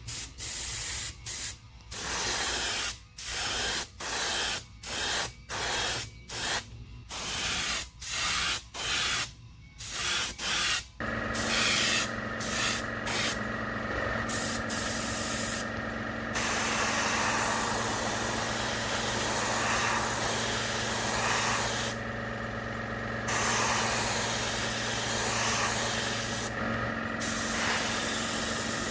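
Airbrush spraying paint onto resin lures: a dozen or so short hissing bursts with brief gaps, then longer, near-continuous spraying broken by a few short pauses. About eleven seconds in, a steady motor hum starts up beneath the hiss.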